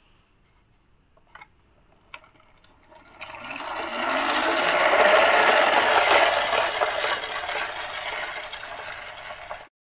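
Plastic toy dump truck rolling across a hard tile floor after a push, its wheels and the small toys in its tipper rattling. A couple of light clicks come first. The rolling rattle builds quickly about three seconds in, then fades and stops suddenly near the end.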